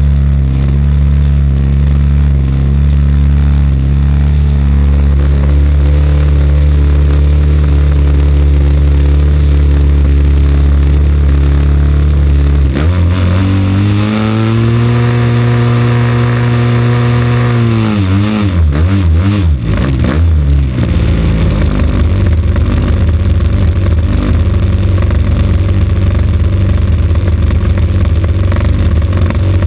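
AGM 30cc two-stroke petrol engine of a large radio-control model plane running on the ground, close to the microphone. About halfway through it is revved up sharply, held at higher revs for a few seconds, then throttled back down to a lower, steady idle.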